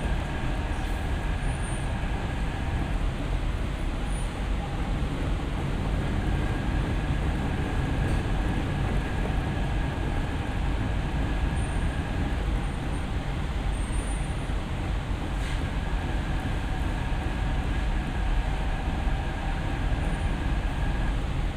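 Hyderabad Metro train running at speed, heard from inside the carriage: a steady rumble of wheels and running gear. A faint thin high tone comes and goes three times over it.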